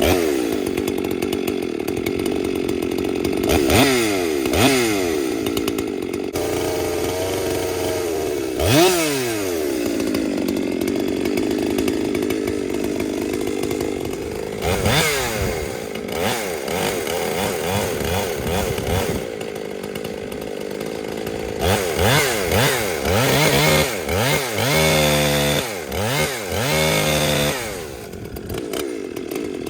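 Husqvarna 257 two-stroke chainsaw running at high revs. Its engine speed dips and picks up again several times, with a quick series of throttle blips a few seconds before the end, after which it drops back.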